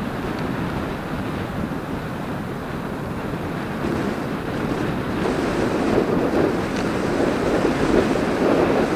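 Wind rushing over the microphone of a camera travelling along a paved road, a steady noise that grows louder about five seconds in.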